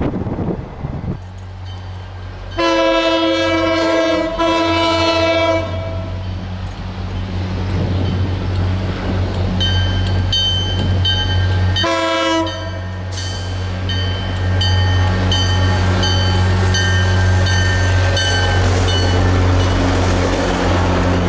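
MBTA diesel commuter train approaching: the locomotive's engine drone, two long horn blasts followed by a short one several seconds later, and a bell ringing about twice a second. The rumble and clatter of the bilevel coaches' wheels on the rails builds near the end as the train passes.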